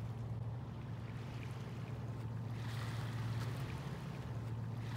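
A steady low engine drone, with a soft wash of water on a stony shore that swells a little around the middle.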